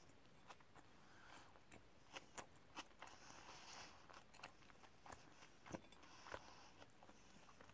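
Quiet chewing of a mouthful of open sandwich: scattered soft clicks and faint crunches from the mouth.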